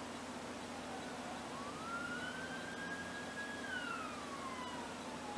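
Ambulance siren wailing, heard from inside a stopped car. One slow tone falls, rises about a second and a half in, holds, and falls again toward the end.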